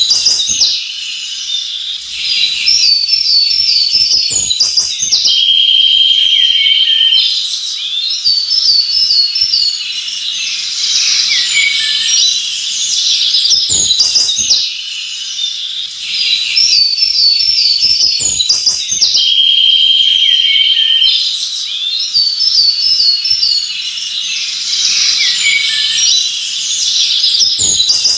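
Forest ambience of several songbirds chirping, trilling and whistling together over a faint steady high hiss. The same sequence of calls repeats about every fourteen seconds, as in a looped recording.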